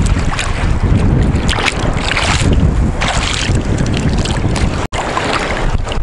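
Rough storm surf: waves breaking and washing in surge after surge, with strong wind buffeting the microphone.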